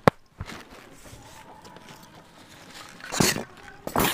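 A sharp knock right at the start, then two short bursts of rustling about three and four seconds in: cardboard box and foam packing peanuts being handled and stirred.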